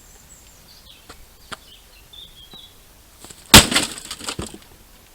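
A heavy weight crashing down onto an old microwave oven: a few light cracks and clicks, then one loud crash about three and a half seconds in, followed by about a second of rattling debris.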